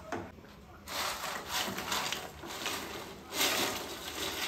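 Wooden spatula scraping and stirring spice powders through oil in a nonstick frying pan, in rough spells, with a louder spell about three and a half seconds in as fried chicken pieces are tipped in by hand.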